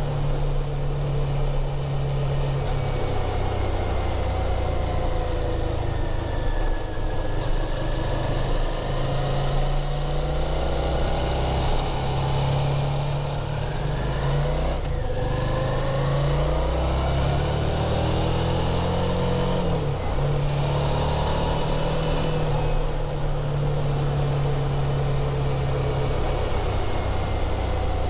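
2017 Suzuki V-Strom DL650's 645 cc V-twin engine running through its stock muffler. The revs rise and fall; one long climb in the middle drops away sharply about twenty seconds in.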